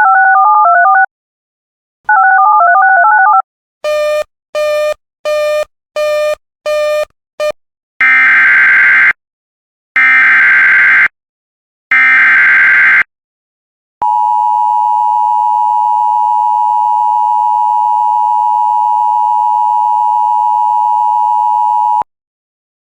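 Emergency Alert System signalling from a radio broadcast. It opens with a warbling two-note chime played twice and a run of six short beeps. Then come three harsh digital SAME header bursts about a second apart, and the steady two-tone EAS attention signal held for about eight seconds, which announces a new warning.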